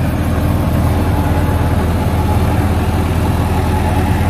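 John Deere 5050E tractor engine running steadily under load, driving an 8-foot Landforce rotavator through hard, dry soil, with the rotavator's blades churning and throwing soil.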